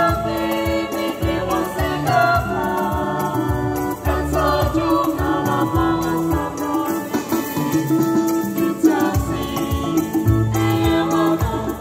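A small mixed-voice vocal group singing a praise song in harmony, accompanied by a Yamaha PSR-SX700 arranger keyboard playing held chords and a bass line.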